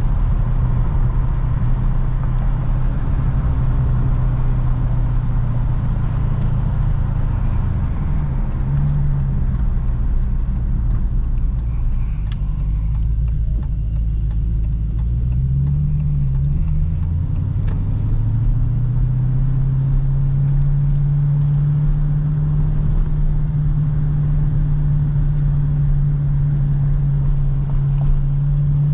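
Dodge Challenger SRT Hellcat's supercharged 6.2-litre HEMI V8 heard from inside the cabin, cruising with a deep, steady engine drone. Its pitch swings a couple of times between about eight and seventeen seconds in, then settles steady and a little higher.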